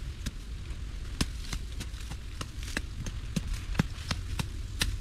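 Irregular sharp taps or knocks, about two or three a second, over a low steady rumble.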